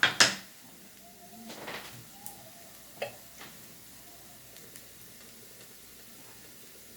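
Chopped garlic sizzling in sunflower seed oil in a frying pan over medium heat as it starts to caramelize. A loud, sudden burst of sound comes at the very start, then stirring noises and a sharp click about three seconds in, over a faint, steady hiss.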